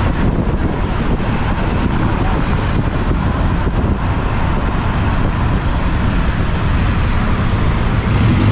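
Motorbike riding through city traffic: steady engine, road and wind noise, loudest in the low rumble.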